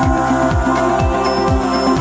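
Electronic dance music with a steady kick drum about twice a second under held synth chords.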